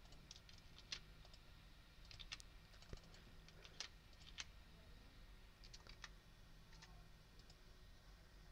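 Faint, scattered clicks of a computer mouse and keyboard keys, a dozen or so short taps spread irregularly over near silence.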